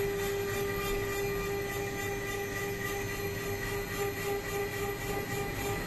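CNC router spindle running at steady speed while its cutter mills a shoe-sole mould into a metal block: a constant-pitch whine over the gritty noise of the cut.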